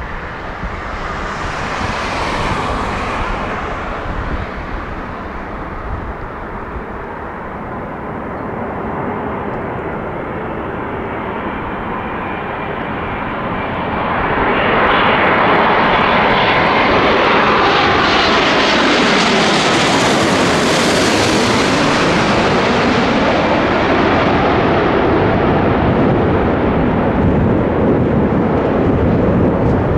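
Boeing 787-9 airliner on final approach, its two GEnx turbofans growing from a distant rush to loud jet noise as it passes low overhead about halfway through. The hiss climbs in pitch to a peak and then sinks with a sweeping, phasing sound as the aircraft moves away toward the runway.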